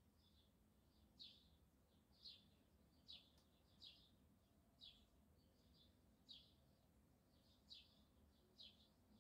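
A small bird chirping faintly and repeatedly, about once a second, each chirp a short falling note.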